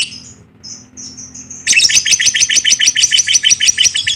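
A bird chirping: a few faint high chirps, then about a second and a half in a loud, rapid run of evenly spaced chirps, roughly eight a second.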